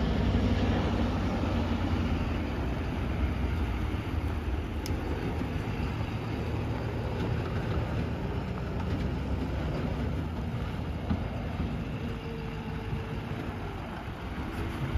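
Pickup-based wildland brush truck driving past on a sandy dirt road, its engine running steadily and tyres crunching over the sand, the sound easing slightly as it moves off.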